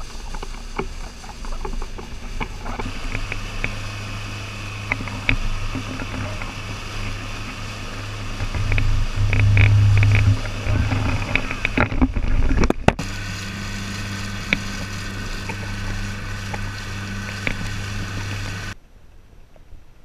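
Motorboat engine running at a steady speed with a low hum, over the rush and splash of water in its wake. The sound breaks off briefly past the middle and drops to a much quieter background near the end.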